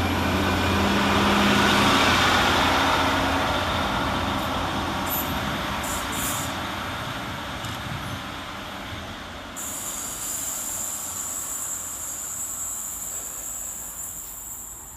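Class 150 diesel multiple unit running and moving away, its low engine note dropping out early and the rail noise slowly fading. About ten seconds in, a steady high-pitched whine starts and holds.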